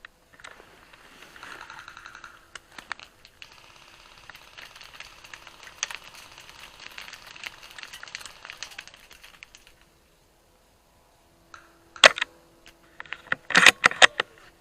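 Rustling and handling noise with scattered light clicks, then a lull. About twelve seconds in comes a single sharp crack, followed near the end by a quick run of sharp clacks.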